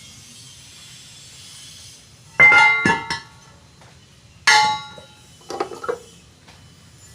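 Two sharp clinks of hard objects knocking together, each ringing briefly, about two seconds apart, followed by a short patter of lighter knocks.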